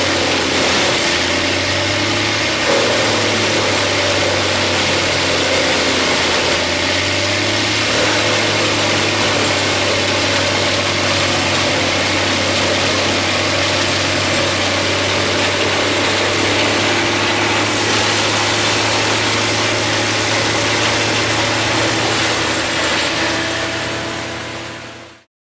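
Wood chipper running steadily and loudly, a constant low engine hum under a dense, even roar. It fades out in the last second or two.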